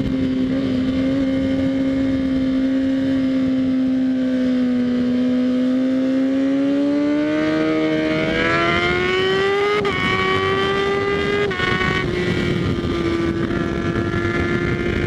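2013 Kawasaki ZX-6R's inline-four engine running through a Graves Motorsports slip-on exhaust with the dB killer removed. It holds steady revs, then the pitch climbs from about halfway through and drops back in two small steps before levelling off.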